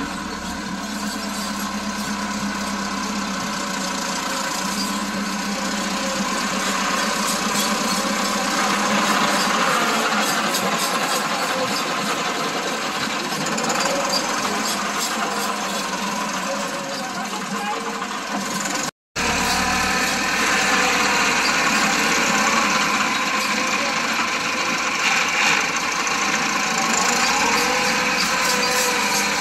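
Farm tractor's diesel engine running steadily under load as it drags a rear levelling blade through wet soil. It grows louder as the tractor passes close, with a brief break in the sound about two-thirds of the way through.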